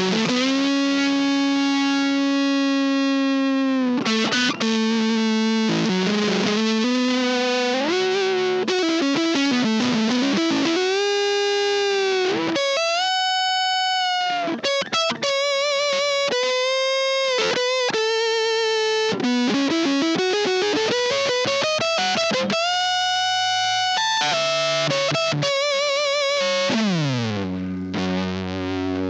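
Electric guitar on its neck pickup, played through a germanium fuzz pedal with the fuzz turned fully up, giving long sustained lead notes with bends and vibrato. A downward slide comes near the end.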